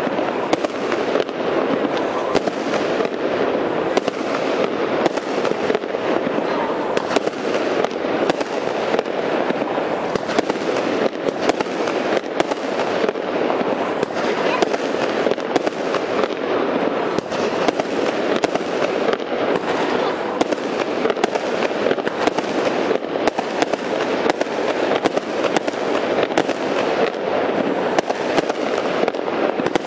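Fireworks going off in a continuous rapid barrage of small bangs and crackling, with no pause.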